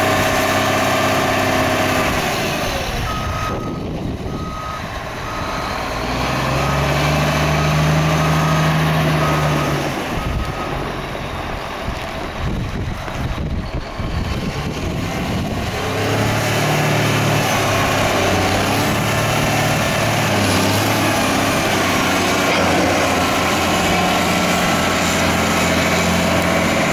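Caterpillar 160H motor grader's diesel engine running as the machine is driven about, its revs rising and falling. A few seconds in, a reversing alarm beeps steadily about once a second for several seconds.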